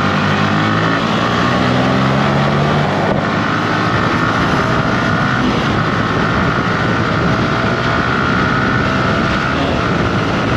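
Yamaha R15 V3's single-cylinder four-stroke engine accelerating hard up through the gears from second to fifth. The engine note climbs, then drops briefly at each of about three upshifts.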